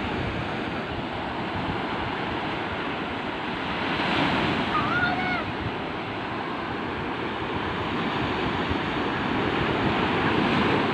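Sea waves breaking on the shore, a steady rush that swells about four seconds in and again near the end.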